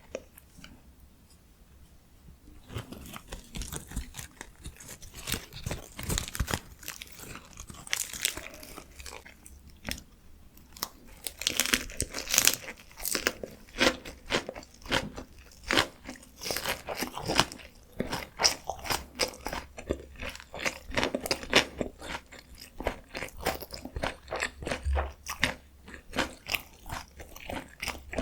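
Close-miked eating of dakgalbi, spicy stir-fried chicken: dense, irregular chewing and wet mouth sounds, starting about two and a half seconds in after a quiet moment.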